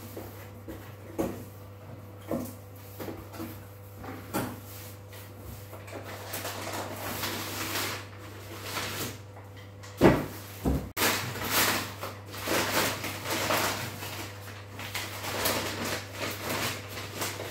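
A taped cardboard box being opened by hand: knocks and taps on the cardboard, then a longer stretch of scraping and tearing as the flaps come open. A loud thump comes about ten seconds in, followed by paper packaging rustling as the paper-wrapped item is lifted out.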